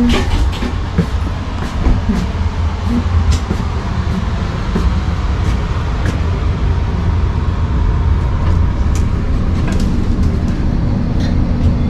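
Passenger train coach interior while running: a steady low rumble with scattered clicks and rattles.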